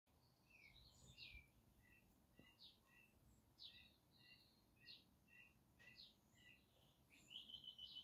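Faint chirping of small songbirds: a string of short chirps and quick downward-sweeping notes, with a rapid trill near the end.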